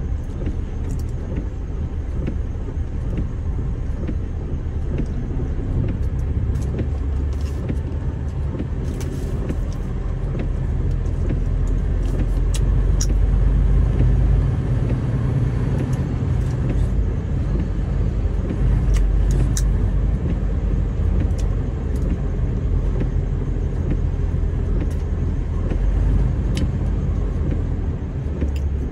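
Semi-truck engine running with road rumble, a steady low drone that swells slightly about halfway through, with a few faint ticks.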